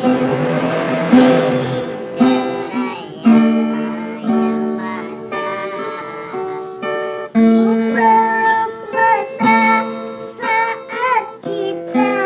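Acoustic guitar being played through a song, with a voice singing along.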